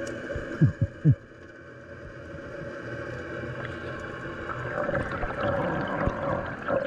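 Underwater sound picked up by a GoPro camera in its housing: a steady hum of several tones, three short loud downward sweeps about half a second to a second in, and a swelling rush of water in the second half.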